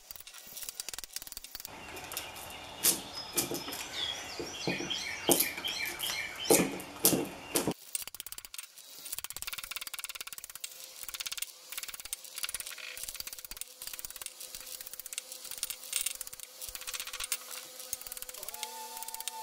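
A screwdriver prying copper windings out of a compressor motor's steel stator: metal scraping with many sharp clicks. It is loudest for a few seconds in the first half, then drops to quieter scattered clicks.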